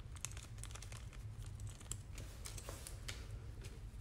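Irregular crinkling and rustling of packaging handled by gloved hands, with scattered sharp little clicks, over a steady low hum.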